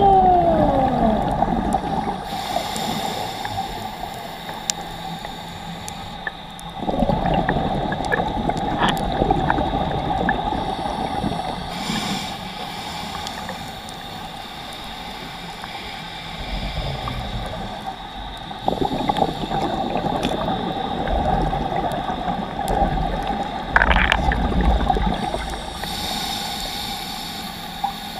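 Underwater sound of a scuba diver breathing through a regulator: a hiss on each inhale and rumbling bursts of exhaled bubbles every several seconds, over a steady hum. At the very start a falling whine glides down in pitch.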